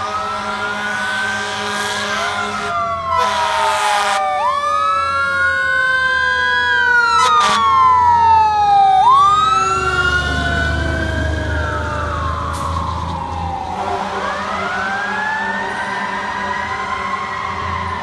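Fire engine responding with its siren wailing up and down, a horn blast about three seconds in and a short one a few seconds later. The truck's engine rumbles loudest as it passes, about ten seconds in.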